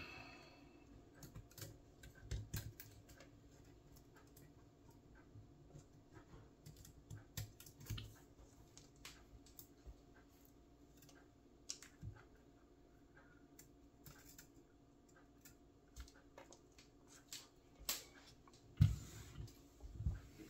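Faint, scattered small clicks and ticks of hands handling a copier fuser unit's wires and plastic connectors, with a couple of heavier knocks near the end.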